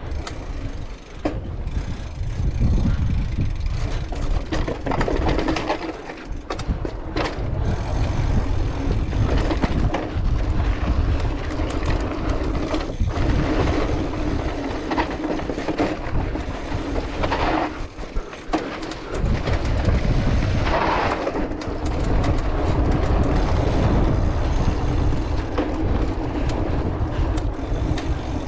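Cross-country mountain bike ridden over rough dirt and stone alley paths, with heavy wind buffeting the camera microphone. The bike rattles and knocks over bumps.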